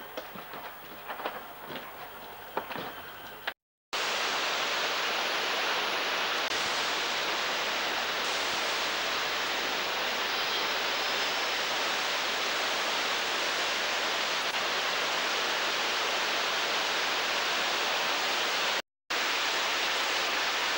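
Waterfall: a loud, steady, even rush of falling water, which breaks off for a moment twice. Before it, for a few seconds, quieter irregular light clicking and rattling.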